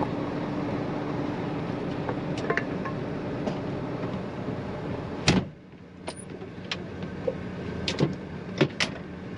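John Deere 9500 combine running steadily, heard from the cab with the door open. About five seconds in, the cab door shuts with a bang and the machine noise drops to a lower, enclosed hum, with a few light clicks after.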